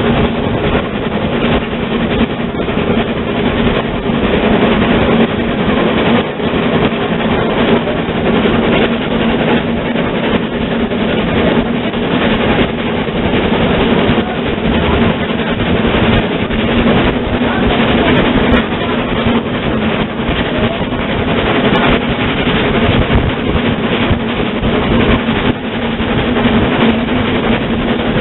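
0-8-0 tank steam locomotive running along the line, heard from its cab side: a steady, loud mix of running gear and wheel-on-rail noise with irregular buffeting.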